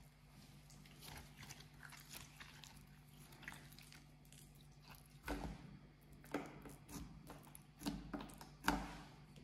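Slime being kneaded and pressed by hand, making many small sticky crackles and squishes, with several louder pops from about halfway through.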